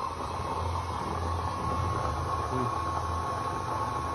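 Homemade burner running with a steady flame roar and hiss, the low rumble swelling and easing, with a thin steady tone above it.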